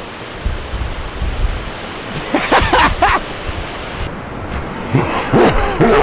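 Rushing mountain stream beside the trail, a steady noise of running water, with short bits of voices in the middle and near the end.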